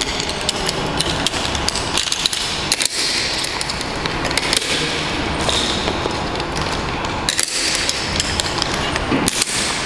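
Metal carabiners and rope-access hardware clinking and clicking as carabiners are handled and clipped together, many short sharp clicks over a rustle of rope and harness webbing.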